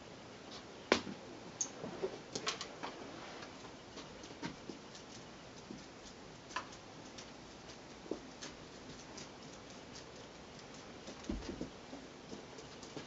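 Faint scattered clicks and taps from play with a cat wand toy among cardboard scratcher pieces, busiest in the first few seconds, with a soft thump near the end.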